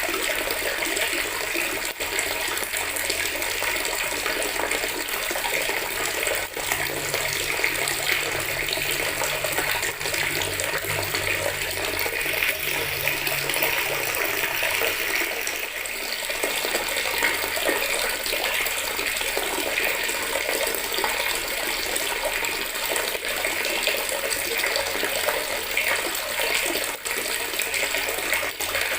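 Water from a tap pouring steadily into a bucket, a continuous splashing stream.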